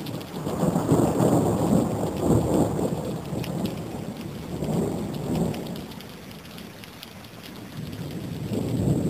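Thunder rumbling over steady rain. The low rumble swells in about a second in, rolls again around the middle, dies down, then builds again near the end, with the hiss and patter of falling rain throughout.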